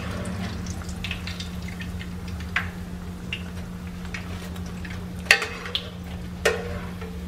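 Hot cooking oil sizzling and crackling in a frying pan, over a steady low hum. A couple of sharper clicks come about five and six and a half seconds in.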